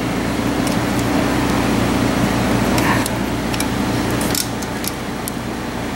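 A steady machine hum, easing slightly about four and a half seconds in, with a few faint light clicks of small metal engine parts being handled.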